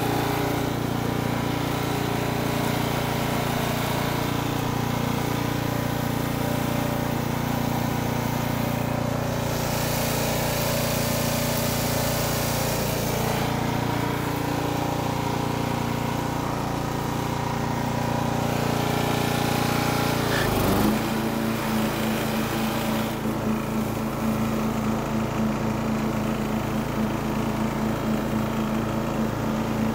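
Riding lawn mower's engine running steadily as the mower is driven. About two-thirds of the way through, its note drops suddenly and settles into an uneven pulsing beat.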